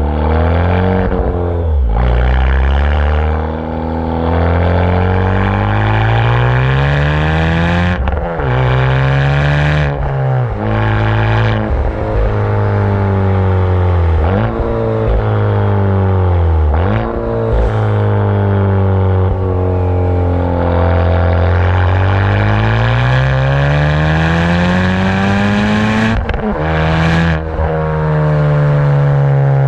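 Honda Civic Type R FK8's 2.0-litre turbocharged four-cylinder heard at its Remus tailpipes with the exhaust valve open, driven hard in Sport mode. The exhaust note climbs in pitch under acceleration and drops sharply at each gear change, many times over, with a few short sharp cracks among the shifts.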